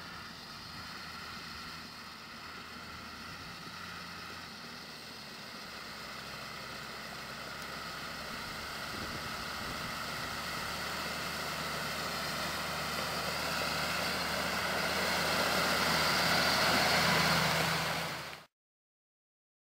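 New Holland 8360 tractor's six-cylinder diesel engine running under load as it hauls a slurry tanker, growing steadily louder as it approaches and passes close by, then cutting off abruptly near the end.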